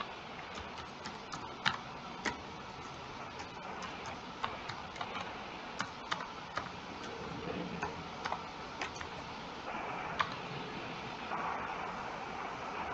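Sparse, irregularly spaced computer keyboard and mouse clicks as a login form is filled in, over a faint steady hiss.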